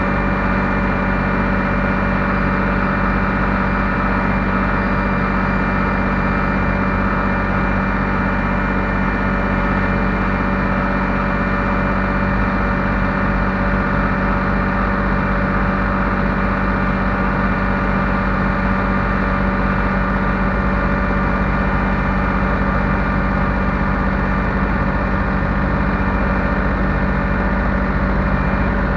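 Bulldozer's diesel engine running steadily at an even speed.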